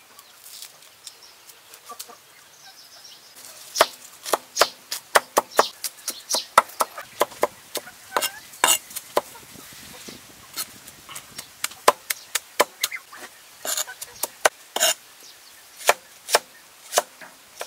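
Garlic cloves chopped with a heavy cleaver on a wooden board: after a few seconds of faint clicks, sharp, irregular knocks of the blade on the wood start about four seconds in and carry on at two or three a second.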